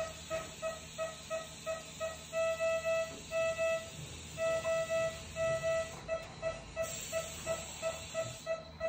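Rapid electronic beeping of a patient monitor, about three short beeps a second at one steady pitch, with stretches near the middle where the beeps run longer and louder.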